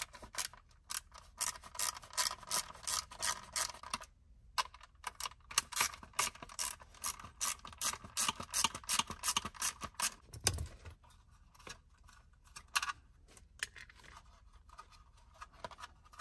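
Ratcheting Torx T20 hand screwdriver clicking rapidly as screws are backed out: a run of clicks, a short pause about four seconds in, a second longer run, then slower, sparser clicks. A dull thump about ten and a half seconds in.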